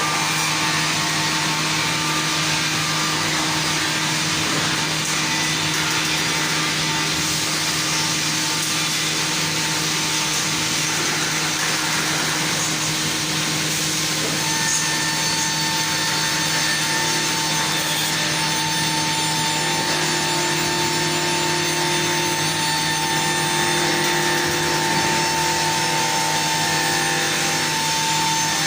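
Circular-saw beam-cutting sawmill running and sawing wood: a steady dense noise over a constant hum, with a higher steady tone coming up about halfway through.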